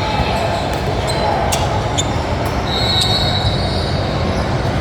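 Basketball shoes squeaking on a gym floor, the longest squeak about three seconds in, over the steady hubbub of a gym crowd, with two sharp knocks around the middle.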